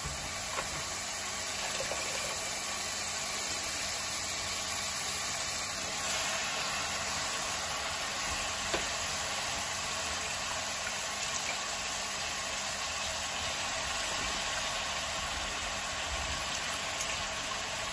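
Onion-tomato masala cooking in a wok on a gas stove, giving a steady sizzle as handfuls of chopped spinach are dropped in, with a couple of faint clicks.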